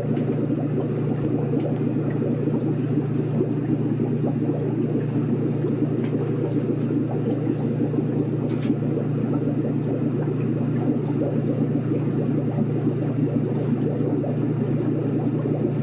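A steady low rumbling hum, even throughout, with a rough fluttering layer above it.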